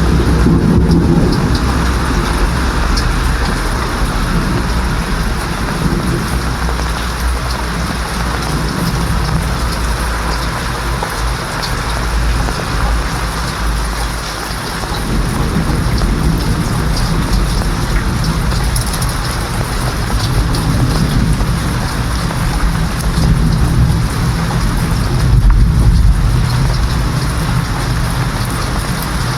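Steady rain falling hard, with low rolls of thunder rumbling near the start, around the middle and again near the end.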